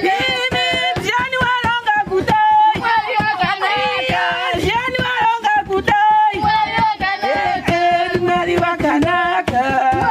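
Voices singing together to a hand-beaten wooden drum, which keeps a fast, steady beat.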